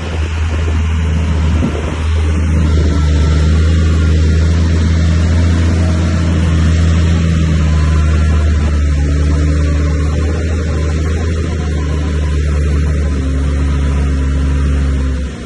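Heavy diesel earthmoving machine's engine running steadily under load, a deep, even drone. It stops abruptly near the end.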